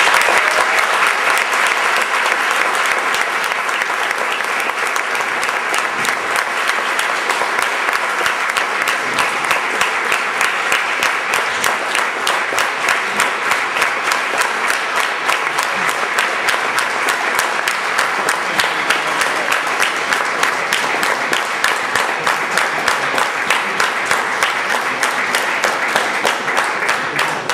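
A large indoor audience applauding steadily for close to half a minute, many hands clapping at once. The loudness pulses fairly evenly through it, and it dies away at the very end.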